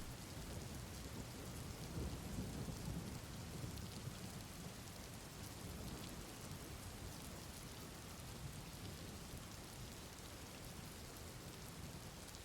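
Steady rain with a low rumble of subtle thunder beneath it, soft and continuous.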